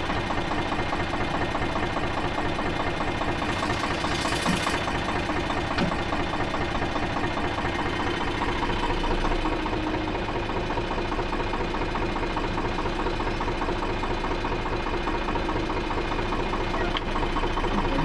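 Diesel engine of a JCB 3DX backhoe loader running steadily under load as the backhoe digs and swings soil into a tractor trolley, with a short rush of noise about four seconds in.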